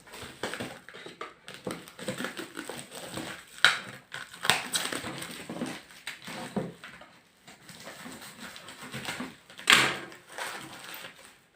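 Cardboard box and paper packaging handled by hand: irregular rustling with sharp knocks, the two loudest about four seconds and ten seconds in.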